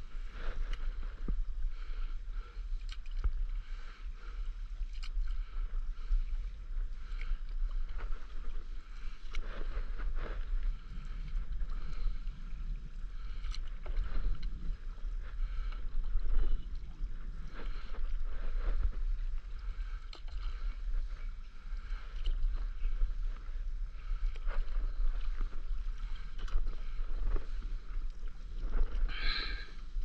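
Stand-up paddleboard being paddled across calm sea: the paddle blade dips and pulls through the water every second or two, with small splashes and water lapping, over a low steady rumble.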